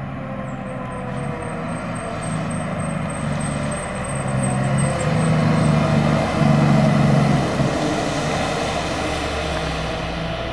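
Fire truck approaching and passing with its engine running, loudest about six to seven seconds in, with several blasts of its air horn.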